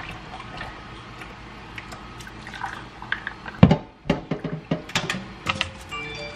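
A crock pot's stoneware insert being handled and lifted out of its base, with knocks and clattering of the crock against the base, and wet boiled peanuts and brine sloshing inside. One heavy knock comes about halfway through, then a quick run of clatters, and a short ring near the end as the crock is lifted clear.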